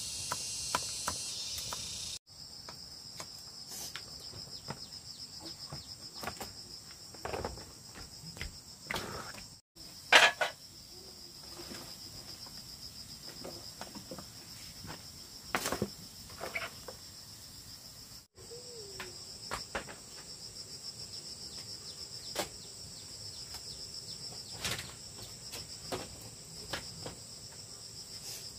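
Insects trilling steadily in a high, fast-pulsing chirr, with scattered knocks and clatters throughout. The loudest clatter comes about ten seconds in.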